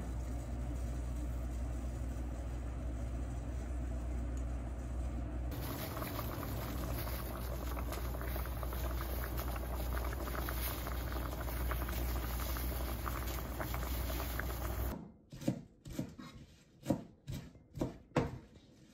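Water boiling in saucepans on a gas stove, a steady bubbling hiss. About fifteen seconds in it gives way to a kitchen knife chopping on a plastic cutting board, about eight chops.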